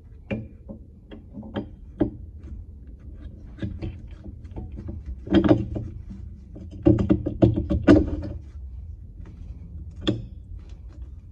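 Metal clanks and knocks as a bolt is worked through the front leaf spring hanger: a few single sharp knocks, then two runs of quicker, louder clanking around the middle, and one more knock near the end.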